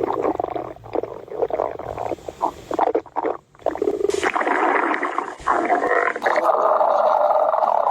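Stomach growling from hunger: a long, drawn-out rumble that breaks off briefly about three and a half seconds in, then runs on steadily.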